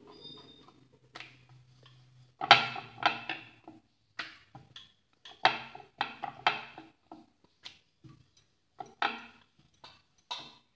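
Wooden rolling pin rolling out a disc of dough on a wooden board, giving a string of irregular wooden clacks and knocks that start about two seconds in. A low steady hum sits under the first two seconds.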